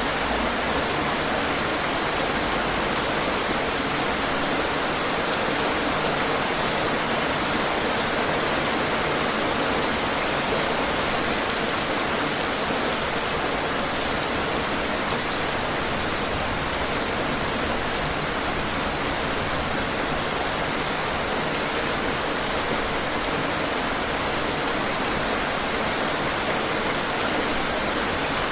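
Steady heavy rain falling, an even dense hiss with the odd louder drop ticking through it.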